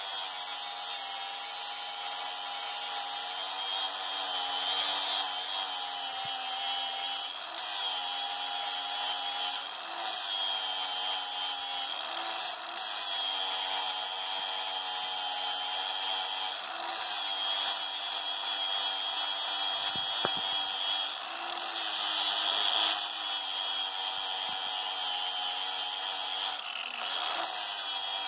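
Cordless angle grinder running steadily, its disc grinding down a metal pipe fitting to make it small enough to fit a 2-inch pipe, with a steady motor whine that dips slightly now and then as the disc bites.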